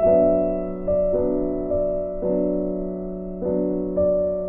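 Background piano music: slow, gentle chords and single notes struck about once a second and left to ring.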